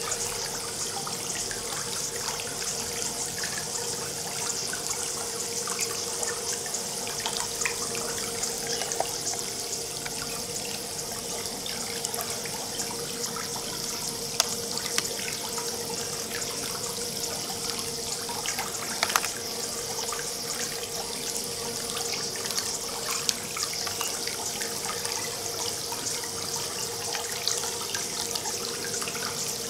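Swimming pool water trickling and lapping steadily, with small drips and splashes throughout and a steady hum underneath.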